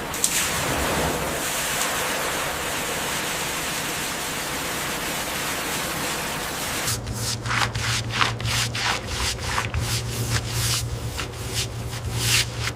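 A steady rushing hiss. About seven seconds in, a motor starts humming steadily, with a run of short scraping strokes over it, roughly two a second.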